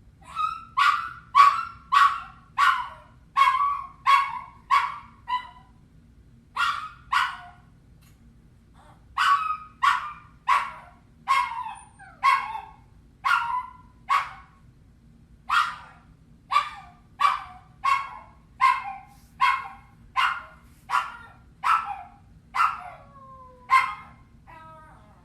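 A dog yelping and crying repeatedly: short, sharp cries, each falling away at the end, coming in quick runs with a few brief pauses.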